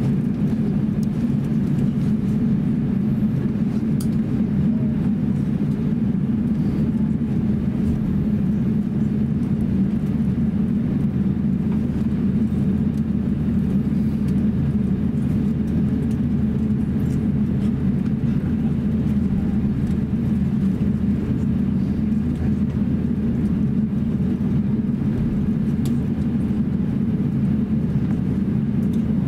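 Steady low rumble inside the cabin of an Airbus A350-900 taxiing, its Rolls-Royce Trent XWB engines at taxi power.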